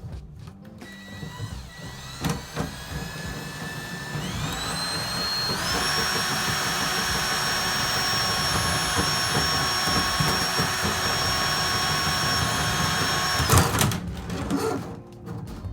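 Electric drain-cleaning machine's motor spinning up with a rising whine, running steadily, then shutting off abruptly about two seconds before the end.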